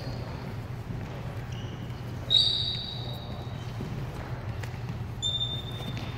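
Shoe soles squeaking on a hardwood gym floor: a loud high squeak a little over two seconds in and another just after five seconds, over a steady low hum.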